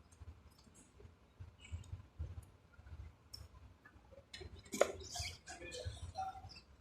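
Scattered light clicks and taps from hand work, with one louder sharp knock a little under five seconds in.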